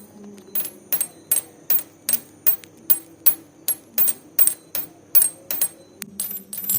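Sharp clicks at a very even pace, about three a second, over a low steady hum.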